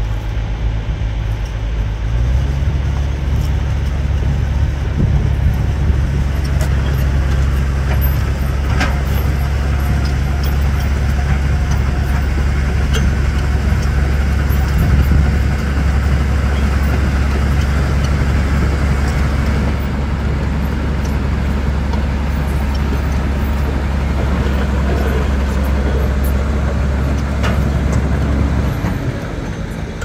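Heavy diesel engine running steadily. Its note steps up about two seconds in and drops back shortly before the end. A couple of faint sharp clicks come over it.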